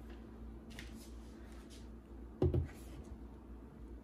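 A milk carton and a plastic measuring cup being handled over a countertop: faint rustles, then one dull knock about two and a half seconds in.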